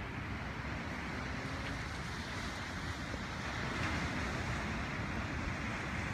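Small waves breaking on a sandy beach, a steady rush of surf that swells slightly about two-thirds of the way through, with wind buffeting the microphone underneath.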